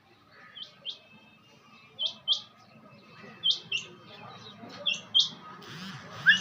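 Quail calling in pairs of short, high notes, four pairs about a second and a half apart. Near the end there is a brief rustle and a louder call.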